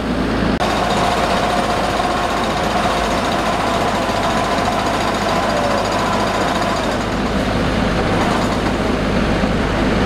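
Engine of a small tracked rice combine harvester running steadily while it unloads threshed paddy rice into sacks.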